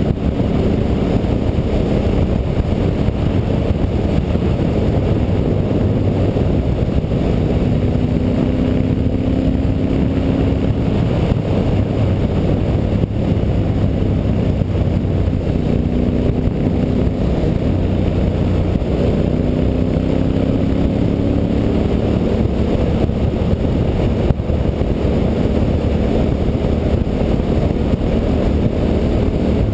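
Honda Varadero 1000's carburetted 90-degree V-twin engine running under way, its pitch rising and falling as the rider rolls on and off the throttle through the bends.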